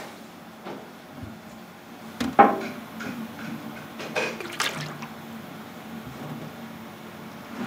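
Liquid splashing and dripping over a steady low machine hum, with sharp knocks about two and a half seconds in and again around four seconds in.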